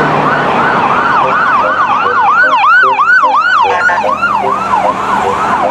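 Electronic ambulance siren yelping, a fast rise-and-fall wail repeating about three times a second, with a brief break about two thirds of the way through.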